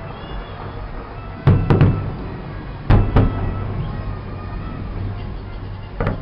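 Fireworks shells bursting overhead: a quick cluster of booms about a second and a half in, two more at about three seconds and one near the end, each with a short echoing tail.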